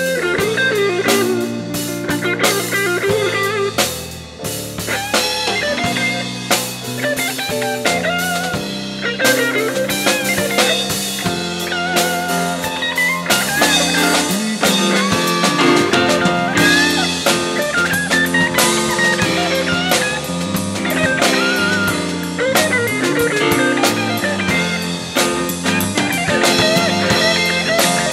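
A jazz-funk fusion band playing live: drum kit and a steady bass line under a wandering melodic lead.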